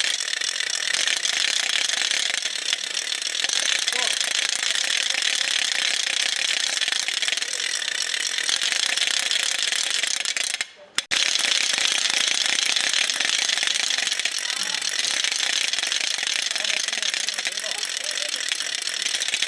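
Wooden ratchet rattle being whirled continuously, a fast, dense clatter that breaks off for a moment about eleven seconds in.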